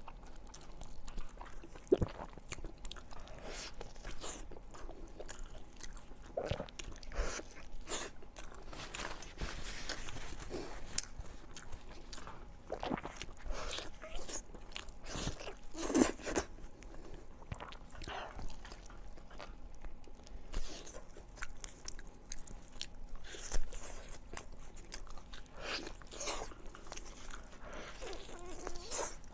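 Close-miked eating: bites and crunchy chewing in an irregular run of crackling crunches, the loudest about sixteen seconds in.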